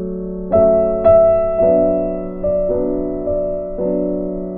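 Background music: a keyboard melody of held, sustained notes, a new note struck every half second or so.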